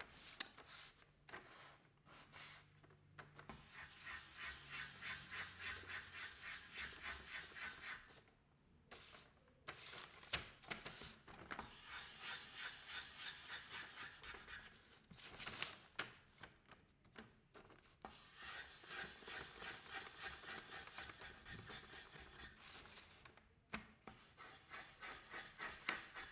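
Charcoal stick scribbling on paper in quick back-and-forth strokes, in three long spells with short pauses between them. A couple of sharp taps fall between the spells.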